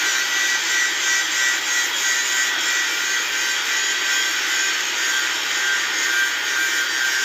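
Handheld angle grinder running steadily under load, its disc grinding a 37.5° weld bevel onto the end of a steel pipe: a continuous high-pitched grinding hiss with a faint motor whine.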